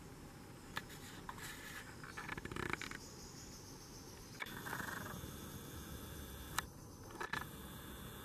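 Camera handling: scattered sharp clicks and rustling scrapes close to the microphone over a faint hiss, with the busiest scraping about two to three seconds in. No hawk call is heard.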